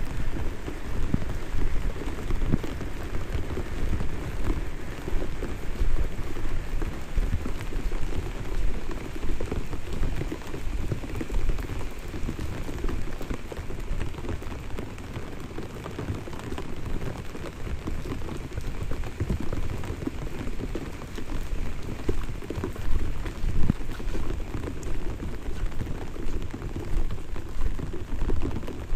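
Light rain falling steadily, with a low rumble underneath.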